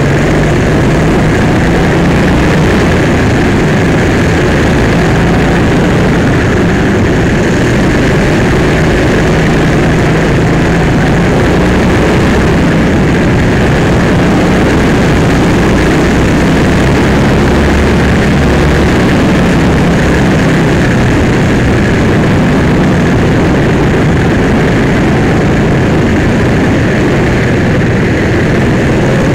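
Go-kart engine running continuously at racing speed, loud and steady, heard from on board the kart. Its low pitch shifts slightly up and down as the kart works through the corners.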